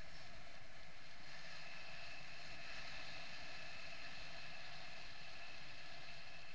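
Steady rush of air over a camera carried on a paraglider in flight, with faint steady high whistling tones that grow a little stronger about a second in.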